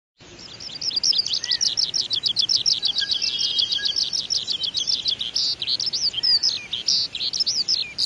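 Oriental skylark singing a long, unbroken stream of rapid, high chirping notes, fading in at the start.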